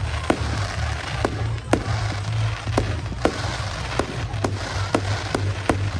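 Fireworks going off: a string of sharp bangs about two a second over a hissing crackle, with a steady low rumble underneath.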